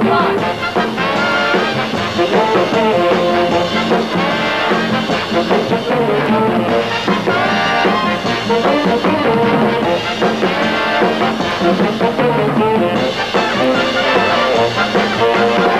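Loud brass-led band music with trumpets and trombones prominent, an instrumental dance break.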